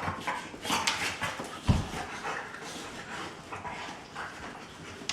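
Two golden retrievers play-fighting: irregular panting, scuffling and dog play noises, with one heavy thump about a second and a half in.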